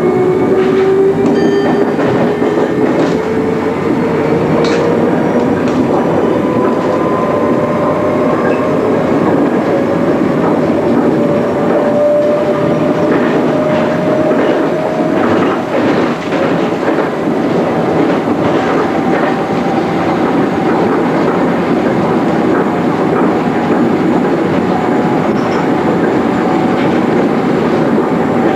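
MI79 electric multiple unit heard from the driver's cab: steady running noise with a motor whine that climbs slowly in pitch as the train gathers speed, and scattered clicks of the wheels over rail joints and points.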